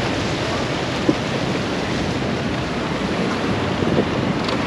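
Steady rushing noise of wind and sea water around a moving tour boat, with a brief knock about a second in.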